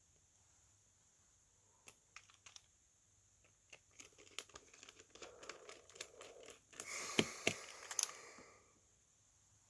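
Hands working with small phone parts: a run of small clicks and taps, then a crinkling rustle with a few sharper clicks, loudest about seven to eight seconds in.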